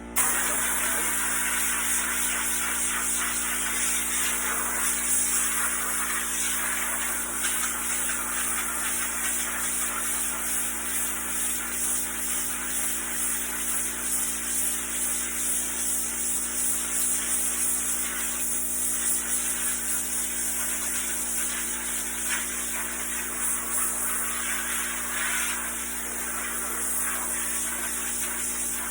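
Compressed-air blow gun starting abruptly and hissing in a long steady blast, with small swells as the air is swept across a freshly rinsed screen-printing screen to blow the water out of the mesh.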